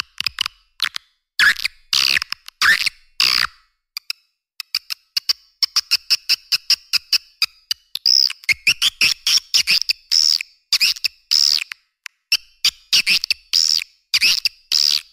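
Swiftlet calling sound used to lure swiftlets to a nesting house: rapid runs of sharp clicks mixed with short chirps and twittering calls, repeating in quick bursts.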